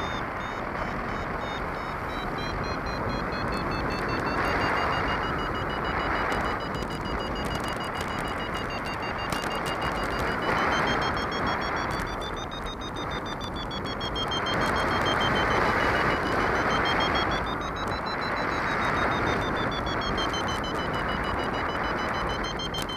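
Wind rushing over the microphone of a paraglider in flight, swelling and easing every few seconds. Under it a flight variometer gives a high tone whose pitch wavers slowly up and down as the climb rate changes.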